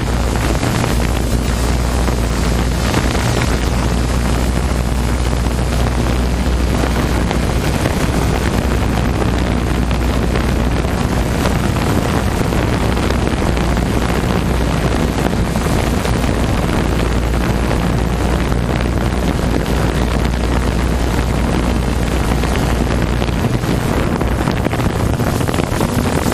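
Open-class 1100–1500cc racing jet skis running at speed on the water, mixed with heavy wind buffeting on the microphone that adds a steady low rumble.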